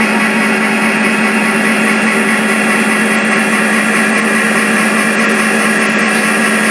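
Model SD40 diesel locomotives running along the track, giving a steady, unchanging mechanical drone.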